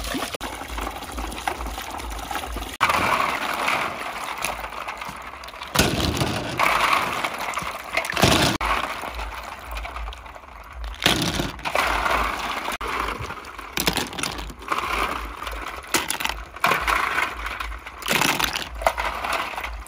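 Snails being washed by hand in water: water sloshing and splashing, with the shells clattering against each other in sudden loud bursts every few seconds. At the start a stream of water pours into a metal basin.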